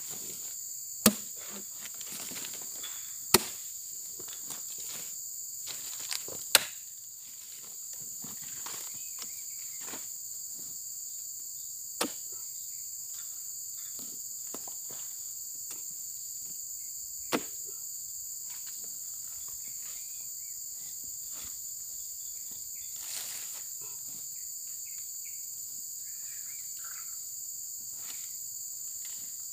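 Steady high-pitched insect chorus, with about five sharp knocks and some rustling in the first eighteen seconds as a metal hooked pole is struck into heavy oil palm fruit bunches and they are shifted through the undergrowth.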